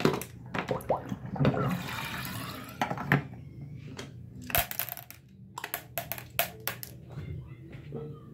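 Water running from a bathroom faucet and splashing into the sink. A plastic medicine bottle packed with ice is handled under the stream, giving a run of sharp knocks and clacks. The water rushes loudest a second or two in.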